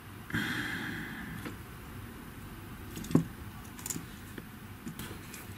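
Hands handling a hair straightener's heater plate and element assembly: a brief rubbing scrape starting about half a second in, then a few small clicks and taps, the sharpest just after three seconds.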